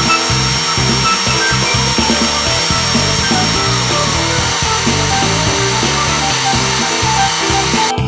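Electric drill and vacuum cleaner running together, a steady noise with a thin high whine, while the vacuum nozzle sucks up the drilling chips. The noise cuts off suddenly near the end, over background music.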